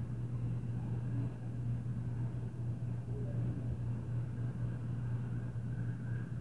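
A steady low hum with a faint, even rushing noise behind it; no distinct thumps or knocks stand out.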